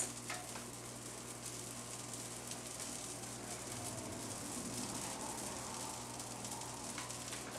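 Faint, steady sizzling from a pan cooking on an electric stove, over a low steady hum.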